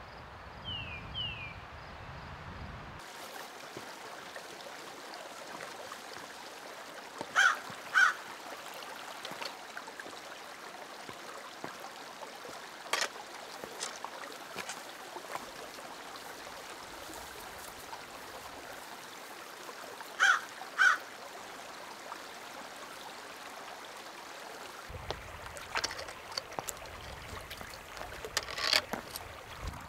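Shallow mountain creek running steadily over rocks. Loud short sharp sounds cut through it several times: two pairs about a third and two thirds of the way through, and a few more near the end.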